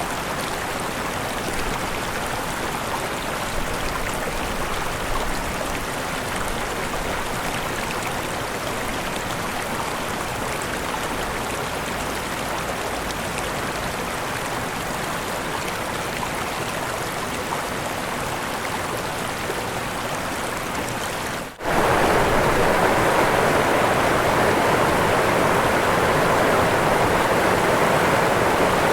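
Waterfall rushing in a steady, even roar of falling water. About three quarters of the way through it breaks off for an instant and comes back louder and fuller.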